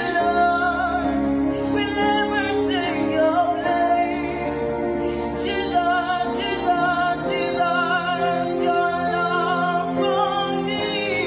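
A man singing into a microphone in long held notes with vibrato, over sustained backing chords that change about two thirds of the way through.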